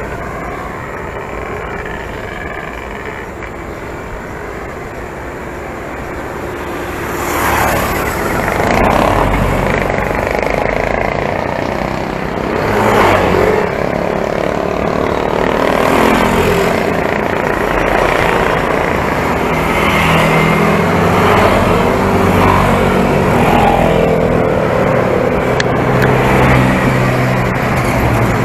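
Wind and road noise from riding a bicycle with the camera along, a steady rush that gets louder about seven seconds in. Motor traffic such as motorcycles and small vans runs close by, with engine hum in the later part.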